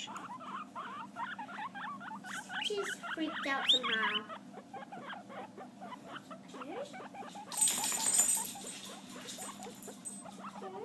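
Guinea pigs squeaking in a rapid run of short, quick calls, with a few louder sliding squeaks about three to four seconds in. About eight seconds in, a brief loud rustle drowns them out for a second.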